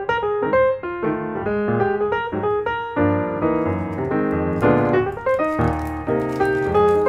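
Background piano music, a steady flow of single notes and chords.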